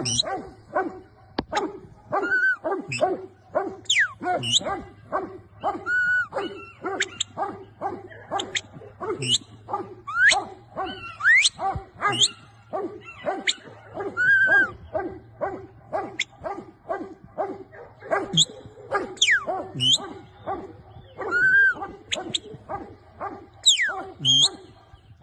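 Working farm dogs barking non-stop, several at once, with high yelps and whines mixed in among the barks.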